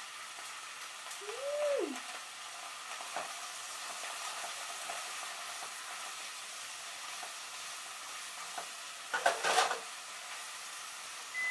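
Cabbage and shirasu sizzling steadily as they stir-fry in garlic oil and soy sauce in a frying pan. About nine seconds in, a brief loud clatter as the food is stirred and tossed with a wooden spatula against the pan.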